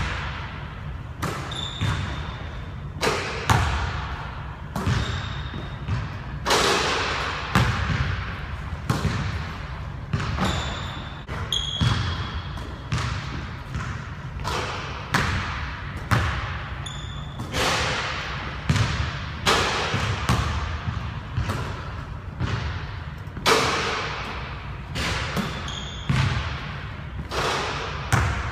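A basketball bouncing and thudding on a hardwood gym floor, about one hit a second, each echoing in the large hall, with a few brief high sneaker squeaks.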